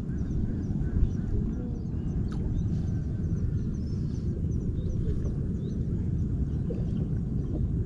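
Outdoor ambience: a steady low rumble, like wind on the microphone, under faint, scattered bird calls. A single soft knock comes about a second in.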